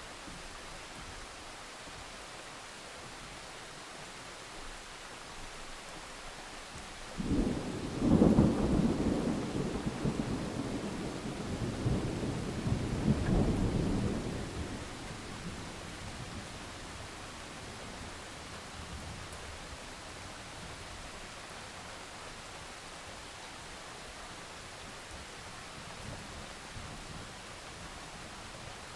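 Steady rain falling, with a roll of thunder that breaks in suddenly about seven seconds in, rumbles for several seconds with a second swell, and fades away.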